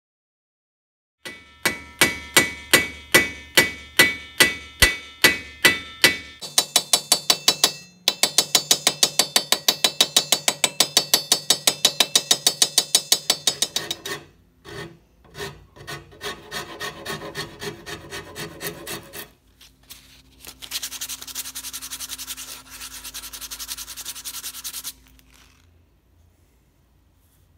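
A hacksaw cutting through a metal shovel socket clamped in a vise, about two ringing strokes a second, then a run of faster strokes. Later a hand file rasps along a bare wooden branch handle in slower strokes, and a steady hiss follows near the end.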